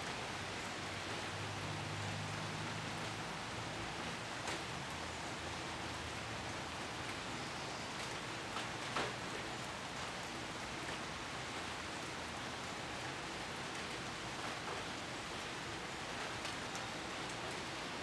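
Steady even hiss of outdoor background noise, with a few faint clicks.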